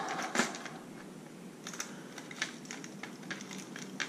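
Hard plastic fishing lures and their metal treble hooks clicking and rattling against each other and a plastic tackle box as hands pick through and untangle them: a string of light, irregular clicks.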